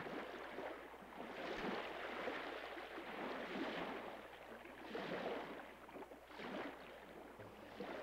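Gentle sea waves washing, a soft hiss of water that swells and fades several times.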